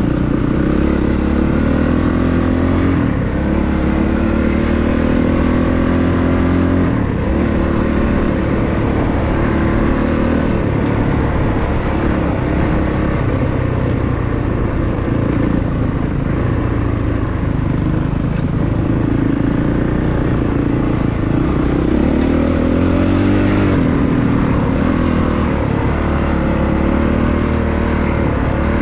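Honda CRF450RX dirt bike's single-cylinder four-stroke engine running under way, its pitch rising as it accelerates and dropping back with gear changes several times.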